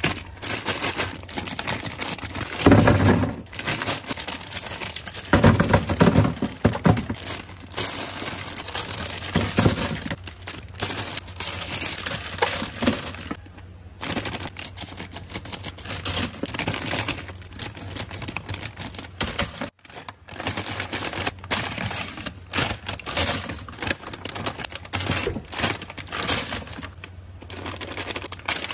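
Plastic candy bags and foil-wrapped sweets crinkling and rustling as they are handled, with dense irregular clicking and clattering of small wrapped candies in a plastic drawer; it stops briefly twice.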